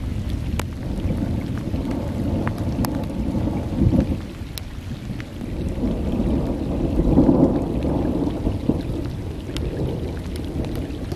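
Rainstorm: rain with strong wind buffeting the microphone in a low rumbling that swells about four and seven seconds in, with scattered sharp raindrop taps.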